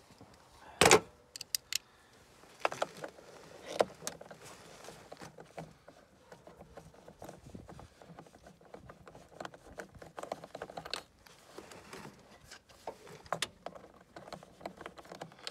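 Hand tools working on the engine cover's fasteners: a screwdriver turning and scraping in a fastener, with scattered metallic clicks and taps. A sharp knock about a second in is the loudest sound.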